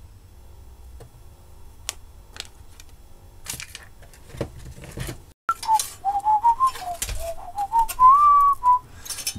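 Small plastic clicks and rattles of a circuit board and button parts being handled, then about halfway through a man whistling a wandering tune for about three seconds.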